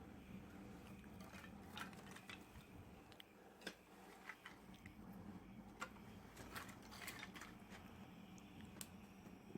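Faint, irregular crackles and clicks from a small wood fire being lit in a homemade rocket stove.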